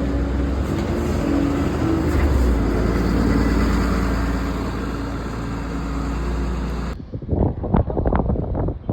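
Bus engine running with steady road noise and a low hum. The sound cuts off abruptly about seven seconds in and gives way to quieter, uneven bursts of noise.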